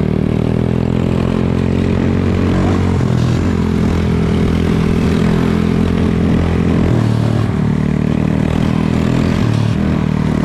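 Small motorcycle engines running steadily while riding, holding an even pitch with slight changes in engine speed about three and seven seconds in.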